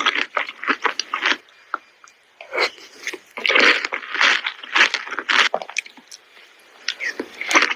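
Close-miked biting and chewing of fresh fruit, crisp and wet crunching in three bursts with short pauses between them.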